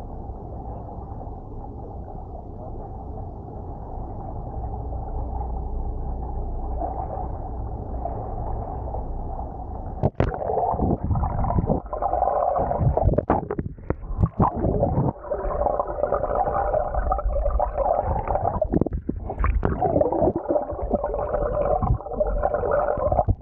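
Steady drone of a moving boat's engine heard at the waterline. About ten seconds in it turns muffled and choppy as the microphone goes under: engine and propeller sound carried through the water, broken by splashes and bubbling.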